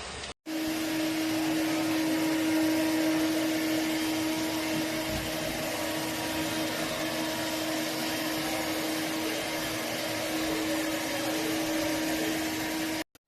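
ILIFE V3s Max robot vacuum cleaner running: a steady whir of its suction fan with a constant hum. It starts abruptly about half a second in and cuts off near the end.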